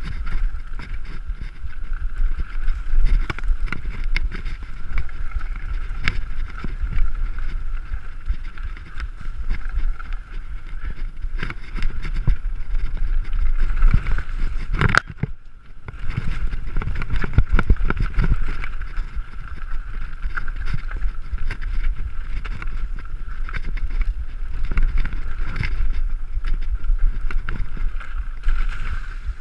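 Mountain bike ridden fast down a rough trail: wind buffets the microphone over the rumble of tyres and rattling knocks from the bike, with a steady high whirr underneath. About fifteen seconds in, a sharp knock is followed by a brief moment where the noise almost drops away.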